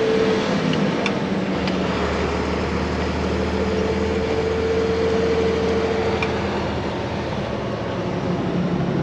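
Truck driving on a road, heard from inside the cab: a steady engine hum under tyre and road noise, with a faint whine through the middle.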